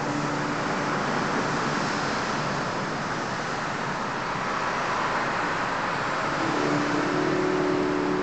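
Steady rushing wash of noise from a sound-and-light art installation's soundtrack, played through loudspeakers in a large stone hall. Faint held low notes sound under it near the start and return about six and a half seconds in.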